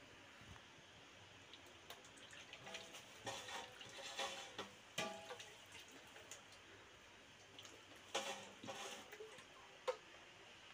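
Faint handling sounds of rice and utensils in an aluminium cooking pot: rustling and scraping in two spells, with light clinks that ring briefly and one sharp click near the end.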